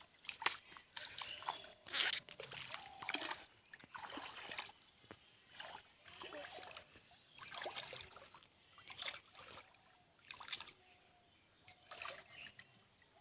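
Hands splashing and sloshing in shallow muddy river water, in irregular bursts with short quiet gaps.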